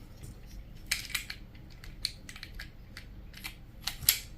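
Scattered light clicks and taps of small parts being handled as a 12-gram CO2 magazine is put back together, with the rubber end being fitted; the loudest click comes near the end.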